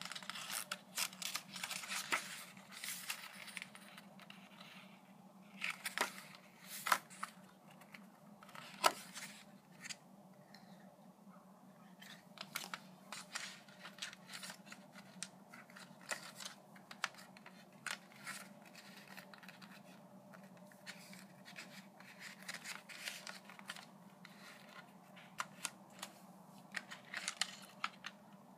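Paper pages of a CD booklet rustling as they are turned, then many small clicks and taps from a plastic CD jewel case being handled, over a faint steady hum.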